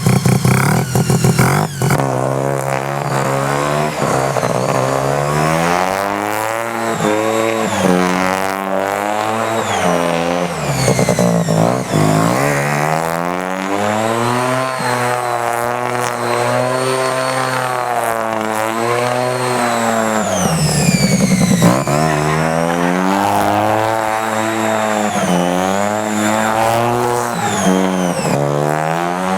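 Single-rotor Mazda rotary engine on a lawn mower, running hard with its pitch rising and falling again and again as it is revved up and eased off, dipping low a few times.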